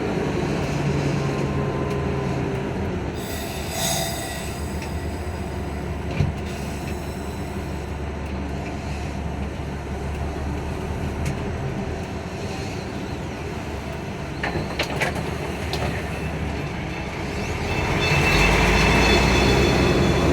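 Volvo B10M bus under way: a steady low engine rumble with road noise and a few short knocks, growing louder near the end.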